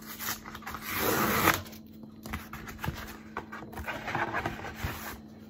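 Cardboard mailer being torn open by hand: a loud tearing rip about a second in, followed by scattered scraping and crinkling of the cardboard as it is pulled apart.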